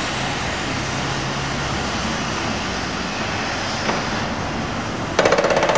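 Steady noise of outdoor machinery and traffic. A little over five seconds in, a loud, fast, evenly repeated mechanical pounding starts abruptly.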